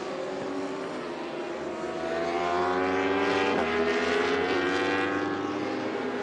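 Several racing superbikes running at high revs together, their engine notes overlapping and rising in pitch. The sound is loudest in the middle, where one note drops sharply in pitch about three and a half seconds in.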